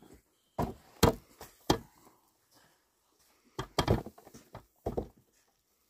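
A series of sharp knocks or blows: three spaced hits in the first two seconds, then a quicker cluster of four or five more in the second half.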